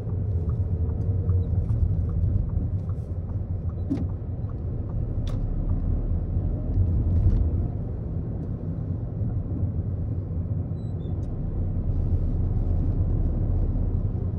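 Car interior noise while driving: a steady low rumble of engine and tyres on the road, heard from inside the cabin, with a couple of faint clicks partway through.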